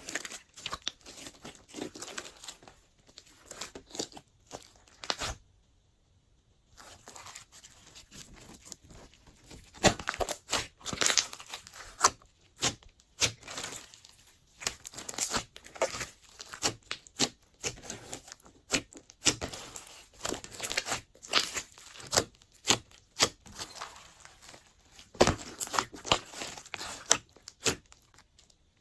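Glossy slime being mixed and kneaded by hand: a steady run of irregular sticky clicks and crackling pops, with a short pause about six seconds in.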